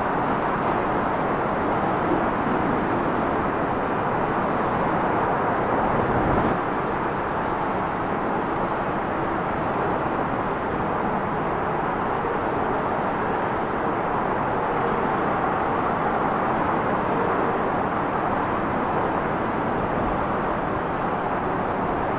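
Steady roar of a Bombardier Dash 8 Q400's twin turboprop engines as the airliner rolls along the runway, dropping slightly about six seconds in.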